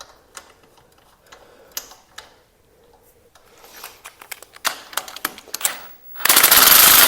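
Scattered clicks and ticks of hand-tool work on the motorcycle, then, about six seconds in, a loud fast ratcheting rattle as a socket ratchet is spun.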